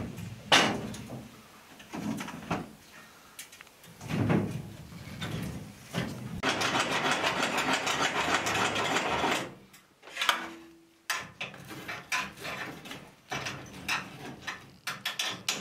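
Split firewood knocking and clattering against the metal firebox of a wood-burning kitchen range as the fire is fed by hand. There are scattered sharp knocks and clicks throughout, with a few seconds of steady scraping in the middle.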